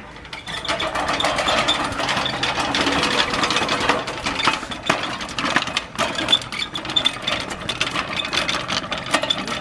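Yardworks 18-inch manual reel mower pushed along with its cutting reel spinning freely, making a steady, rapid whirring clatter of blades and wheel drive gears. The mower has just been cleaned and lubricated.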